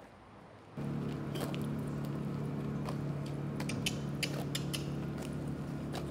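A steady low hum starts suddenly about a second in and holds, with scattered irregular clicks and scuffs of footsteps on the ground.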